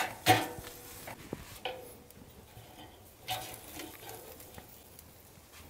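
Metal spatula and fork scraping and clinking against a steel cooking grate while lifting a whole smoked chicken: a sharp clink about a quarter second in, then a few fainter knocks that die away.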